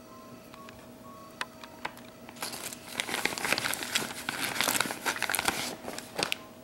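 Plastic vacuum-sealer bag crinkling as salmon pieces are worked into it and the bag is pressed down by hand. A few light clicks come first, then a dense run of crackles from about two seconds in until shortly before the end.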